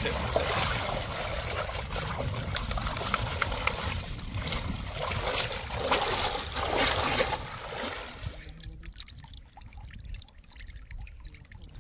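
Water trickling and splashing for about eight seconds, then dropping to a quieter stretch with a few small clicks.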